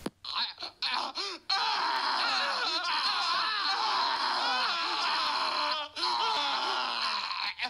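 A man's drawn-out wailing and moaning cries, high and wavering in pitch, sounding like someone in agony. A few short cries come first, then the wailing runs almost unbroken, with one short break near the end.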